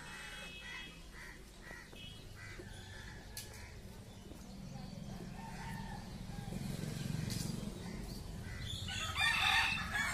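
Domestic fowl calling: short repeated calls in the first couple of seconds, then one loud harsh call about nine seconds in. A low rumble swells through the middle.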